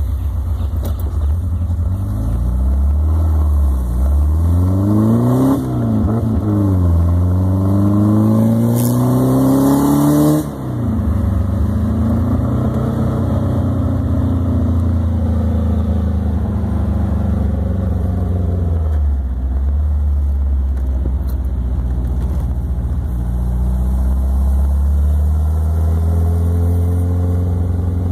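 Air-cooled flat-four engine of a Porsche 356, heard from the open cockpit while driving. The revs climb through gear changes about four and six seconds in, drop sharply about ten seconds in and ease down slowly, then build again near the end. The carburettors have just been adjusted.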